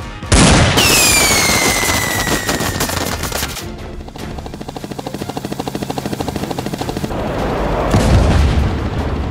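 Rapid machine-gun-style gunfire sound effects: a sudden loud burst about a third of a second in with a falling whistle over it, then a steady fast rattle of shots, and a deep boom about eight seconds in, over background music.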